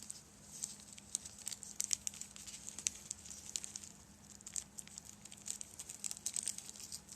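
Plastic bag crinkling and rustling in hands, with irregular small crackles, as tiny resin 3D-printed parts are worked loose from the bag they are stuck to.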